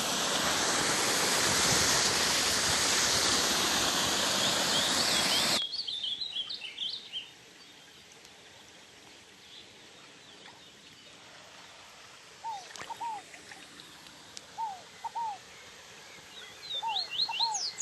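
Small waterfall rushing steadily, stopping abruptly about five and a half seconds in. Birds then call over a quiet background: quick high chirps right after the stop and again near the end, and short two-note downward calls, lower in pitch, repeated several times.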